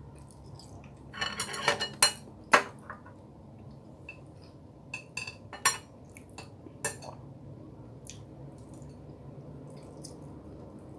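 Cutlery clinking against a plate while eating: a quick run of ringing clinks a second or two in, then a few lighter clicks a few seconds later, over a faint steady low hum.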